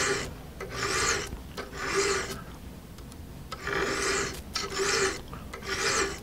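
Hand file draw-filing the edge of a scraper blade held in a vise: about one rasping stroke a second, six in all, with a short pause midway. The file is cutting the blade's square edge down to a 45-degree bevel.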